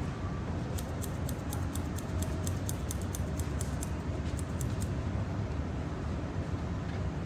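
Hair-cutting scissors snipping quickly through wet hair, a run of crisp blade clicks at about five a second lasting around four seconds, over a steady low background rumble.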